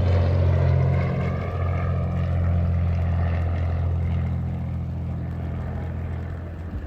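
Aircraft flying low overhead: a steady low droning hum with higher tones slowly bending in pitch, gradually fading as it moves away.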